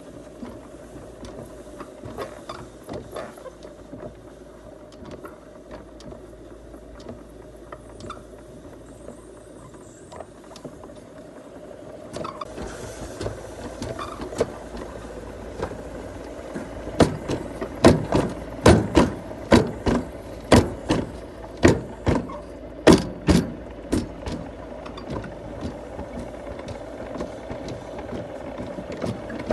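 A vehicle running with a steady hum, heard from inside. It grows louder about halfway through, followed by a run of sharp clacks.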